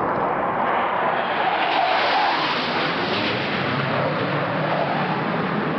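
Jet noise of a Russian Su-24 flying low past the ship, a broad rushing roar that swells about two seconds in and stays loud.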